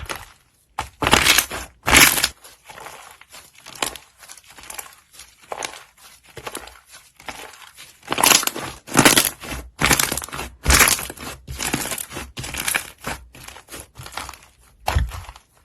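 Slime being squeezed and pressed by hand, making irregular short squishing noises several times a second, louder in clusters about a second in and again around eight to eleven seconds in.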